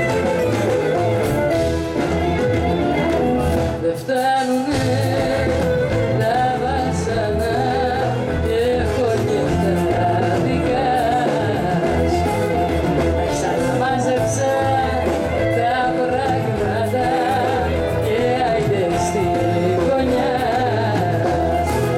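Live band playing a Greek pop song, with drums, bass, electric guitars and keyboard, while a woman sings lead into a microphone. The band drops out for a moment about four seconds in, and the singing carries on over the full band afterward.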